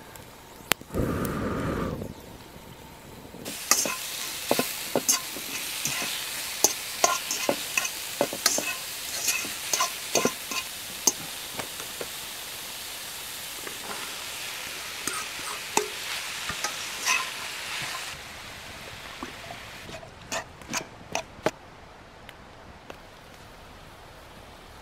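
Minced meat sizzling as it fries in a steel wok, with a utensil clicking and scraping against the pan as it is stirred. The sizzle starts about three and a half seconds in and drops away about eighteen seconds in, followed by a few quick sharp clicks.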